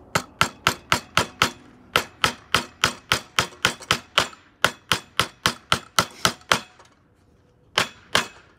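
Hammer driving nails into a wooden board: a fast run of sharp blows, about four a second, for about six and a half seconds with a brief pause near two seconds in, then two more blows near the end.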